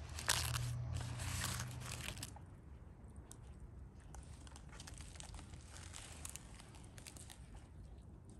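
Large banana leaves being folded and creased around a food parcel: dry crinkling and rustling, loudest for the first two seconds, then softer scattered rustles and small crackles.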